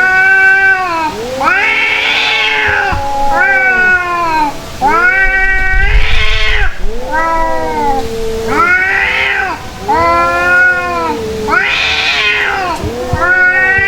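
Two domestic cats yowling at each other in a fight standoff. About ten long calls follow one another, each about a second long, rising then falling in pitch, one cat's voice overlapping the other's.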